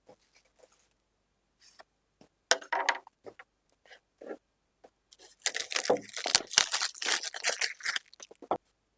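Phone box packaging being torn open and crinkled: a sharp rip about two and a half seconds in, then a longer stretch of tearing and crinkling plastic or paper from about five to eight seconds.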